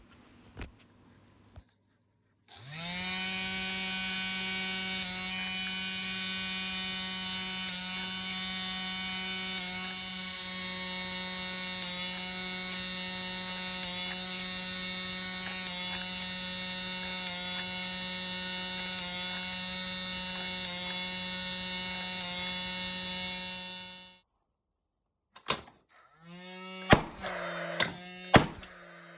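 Paslode 350 cordless nail gun's small electric fan motor spinning up about three seconds in, running steadily with an even whine for about twenty seconds, then stopping. Near the end several sharp clicks come, and the fan briefly runs again.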